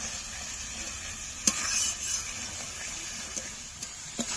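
Food sizzling in a cooking pan as it is stirred, with a sharp knock of the utensil on the pan about a second and a half in and a few light clicks near the end.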